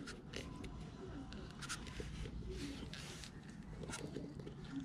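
A flexible infill strip being pushed into an aluminium rail, with short scrapes and clicks of plastic on metal and a longer scrape about halfway through. A bird coos at intervals in the background.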